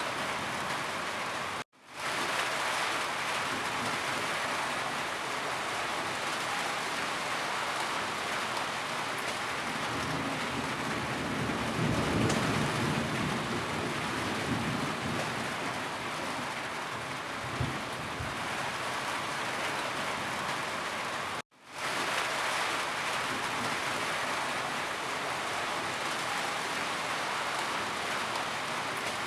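Steady heavy rainfall, an even hiss of drops. A low rumble swells about halfway through. Twice the sound cuts out to silence for a moment and fades back in.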